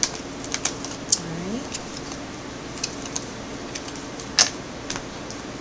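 Tarot cards being shuffled and handled close to a microphone: a scatter of light snaps and clicks, the sharpest about a second in and about four seconds in, over a steady low hum.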